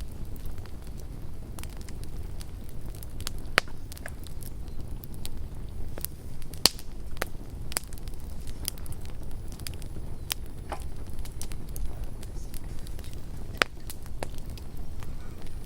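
Campfire burning with a steady low rumble and irregular crackles and sharp pops of burning wood; the loudest pops come about a third, two-thirds of the way and near the end.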